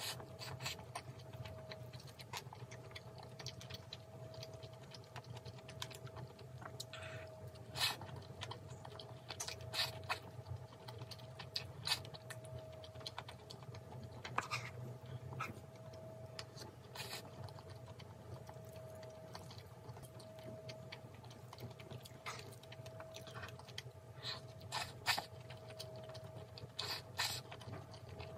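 Close-up chewing of fried rice with crunchy bean sprouts, with scattered sharp clicks of a spoon against a small skillet, over a faint steady hum.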